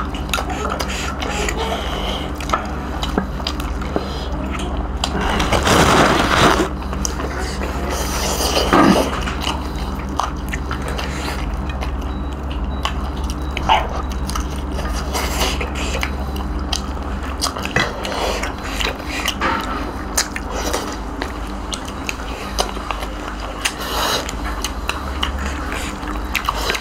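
Two people biting and chewing roast duck and rice eaten by hand off steel plates: scattered wet clicks and smacks over a steady low hum, with a louder burst about six seconds in.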